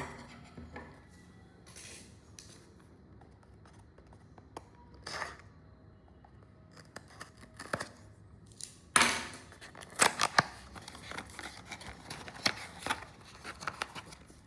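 A cable's retail packaging being opened by hand: irregular scratching and rustling, then a busier run of short, sharp scraping strokes from about nine seconds in.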